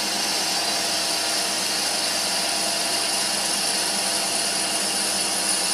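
Emco PC50 CNC lathe running under program, its spindle turning a brass rod while a ground insert takes a light turning cut along it: a steady, even machine sound with a faint high whine.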